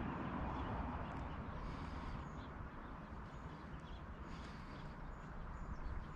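Quiet outdoor pond ambience: a low steady rumble with faint short high chirps now and then.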